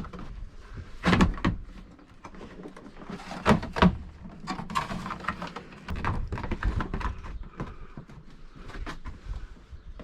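Plastic ceiling assembly of a rooftop RV air conditioner being pushed up and fitted against the ceiling: irregular hollow knocks and scraping, with louder thumps about a second in and again around three and a half seconds in.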